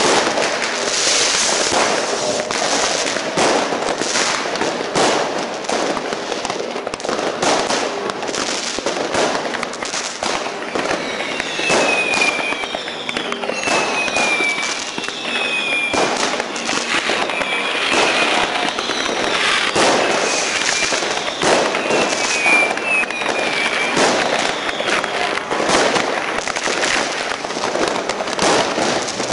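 Fireworks going off all around: a continuous string of firecracker and rocket bangs and crackling, with a run of whistling fireworks that fall in pitch, one after another, through the middle.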